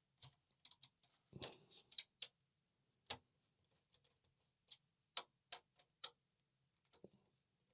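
Faint, irregular small clicks and taps of a screwdriver and screws against an Amiga 500's metal RF shield, as screws are driven in by hand.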